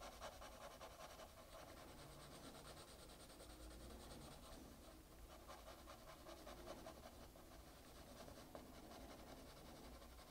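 Faint scratching of a pencil shading on drawing paper in quick, repeated short strokes.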